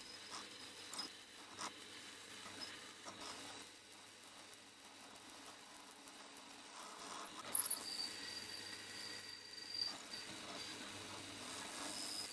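Pillar drill boring holes in an aluminium block: the drill runs with a thin, steady, high whine while the bit cuts, louder from about three to eight seconds in, with light scraping and ticking of swarf.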